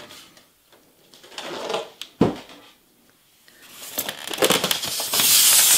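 Packaging of a boxed RC excavator being opened by hand: a single sharp knock about two seconds in, then loud rustling and scraping that builds up near the end.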